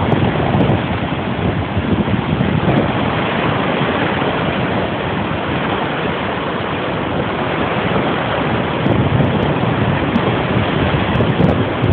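Baltic Sea surf breaking and washing through the shallows, with wind buffeting the microphone.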